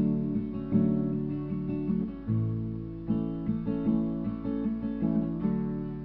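Acoustic guitar strummed in a run of changing chords, with no singing.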